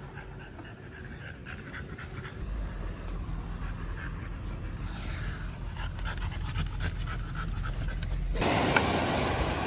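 French bulldog panting close by, over a low wind rumble. About eight seconds in, this gives way suddenly to the louder, steady rush of surf breaking on a shingle beach.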